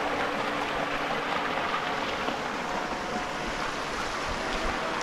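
Small rainforest stream splashing over mossy rocks in a little cascade: a steady rush of running water.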